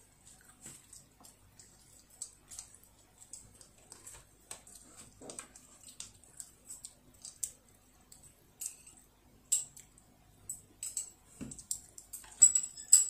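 A small child eating sweet potato rice from a ceramic bowl with chopsticks: soft close-up chewing and mouth sounds, with scattered light clicks of the chopsticks against the bowl, a few sharper clicks near the end.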